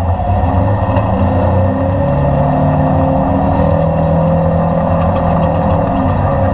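Polaris RZR 1000 XP engine running loud through an aftermarket Assassins exhaust while driving, its pitch shifting slightly, with a faint repeated chirping over it that the owner suspects is the drive belt.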